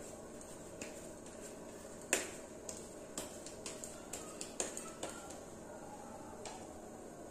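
A string of light, sharp clicks and taps as hands press and roll soft stuffed semolina dough balls. The loudest click comes about two seconds in, followed by a quick run of smaller ones.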